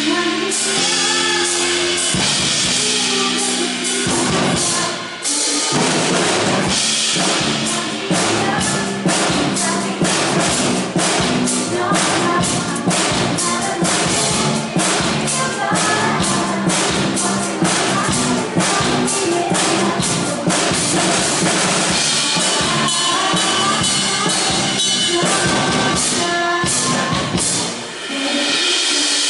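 Band playing a pop song in rehearsal: sustained chords at first, then a steady drum-kit beat comes in with the band, dropping out briefly near the end.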